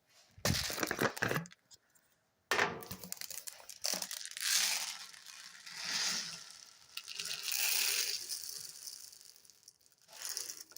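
Plastic packaging crinkling and rustling in bursts with small clicks, as laundry pods and scent beads are handled.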